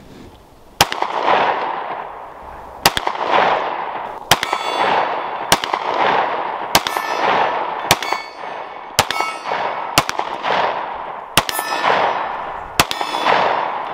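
SIG P320 M18 9mm pistol fired ten times at a steady pace, shots about a second apart, each with an echo trailing off. Several shots are followed by a metallic ring, steel targets being hit.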